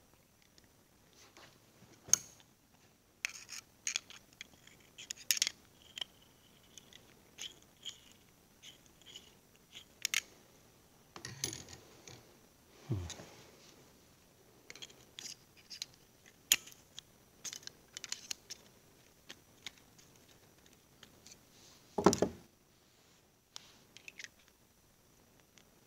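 Small metal hydraulic-lifter parts being handled on a bench: scattered clicks, taps and light scrapes, with a few sharper knocks, the loudest near the end.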